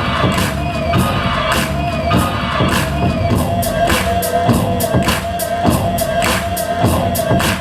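Hip-hop beat played loud over a PA: a producer's flip of a soul vocal sample, with drums hitting about twice a second over a held note and bass, the hi-hats getting busier in the second half.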